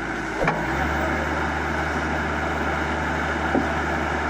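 JCB 145 excavator's diesel engine running steadily, its note shifting slightly just under a second in, with two single knocks, one about half a second in and one near the end.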